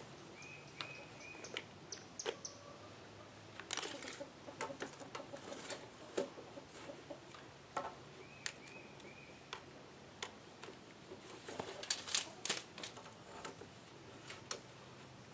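Scattered light knocks, clicks and footfalls of work on the porch, busiest about four seconds in and again near twelve seconds. A bird calls twice, each time a quick run of three short high chirps.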